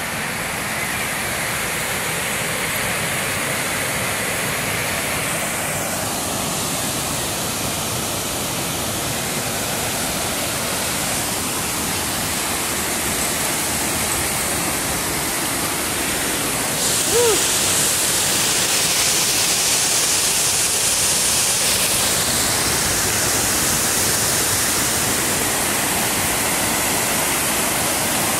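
Water pouring steadily over a low stone weir, a continuous rushing hiss. Just past the middle it grows louder and brighter, with a brief louder sound at that moment.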